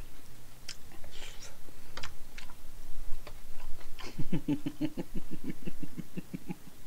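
Spoon and chopsticks clicking and scraping on a ceramic plate while eating. About four seconds in comes a rhythmic run of short closed-mouth voice pulses, about six a second, lasting a couple of seconds.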